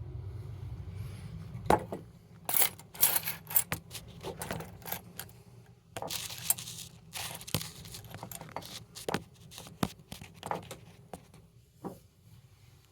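Wire nuts and other small hard parts clicking and rattling in irregular bursts as they are picked through by hand. There is some rustling, and a low steady hum stops about two seconds in.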